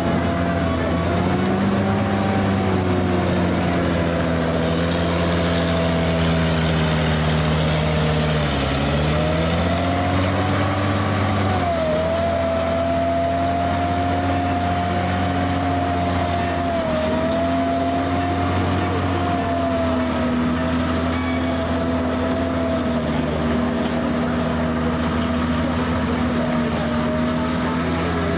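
Panzer IV Ausf. H tank engine running steadily as the tank drives on its tracks. The engine note dips about a third of the way in, rises again, and dips briefly once more about halfway through.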